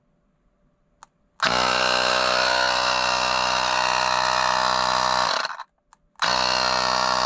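Travlog cordless portable tire inflator's compressor motor running free with no hose attached: a steady pitched mechanical hum that starts after a faint button click about a second and a half in, runs about four seconds, stops, and starts again near the end.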